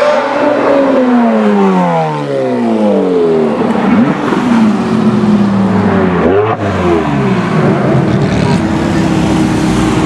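Sports car engines accelerating hard past, one car after another. An engine note falls away over the first few seconds, another rises and sweeps by about two-thirds of the way in, then a steadier engine note holds.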